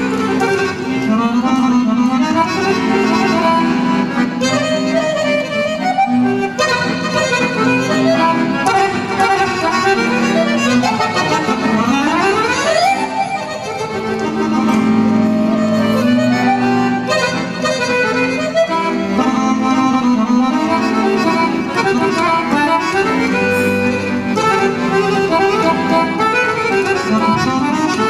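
Piano accordion playing a fast, ornamented melody live, picked up by a hand-held microphone. About twelve seconds in there is a quick rising run up the keyboard.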